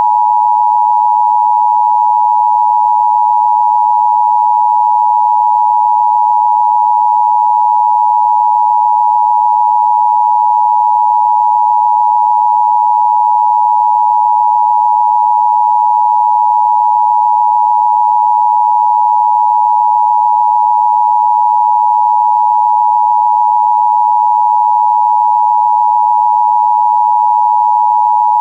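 Emergency Broadcast System attention signal: a loud, shrill electronic tone just under 1 kHz, made of two tones close in pitch, held perfectly steady and unbroken.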